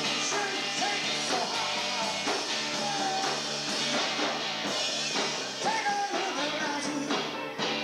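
A rock band playing live: guitar, bass and a drum kit with regular drum strikes, and a sung vocal line over them.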